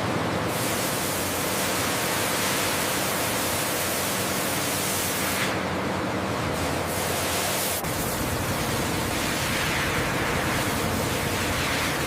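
Steady rushing, hiss-like factory machinery noise with a faint low hum. The sound changes abruptly about eight seconds in.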